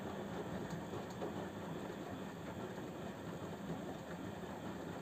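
Samsung WF0800NCE front-loading washing machine running its drum-clean cycle: a steady low machine hum under a constant noisy rush.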